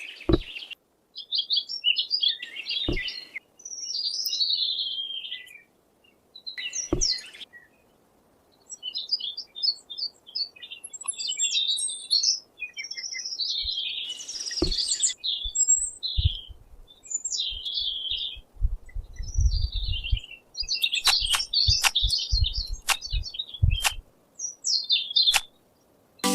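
Small birds chirping and twittering, with scattered sharp clicks and knocks that come more often in the second half, and a brief low rumble about twenty seconds in.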